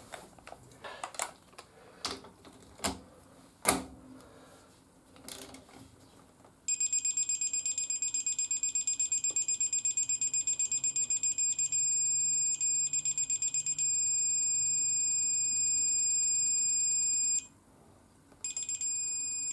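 Digital torque wrench beeping as the final drive oil plug is tightened: a fast run of high, even beeps that turns into a long steady tone when the set torque of 20 N·m is reached, then one more short tone near the end. Before the beeping, a few sharp clicks and knocks of the tool being handled.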